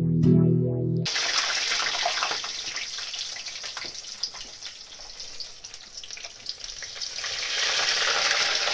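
Battered food deep-frying in hot oil in a frying pan: a steady sizzle with many small crackles and pops, getting louder near the end.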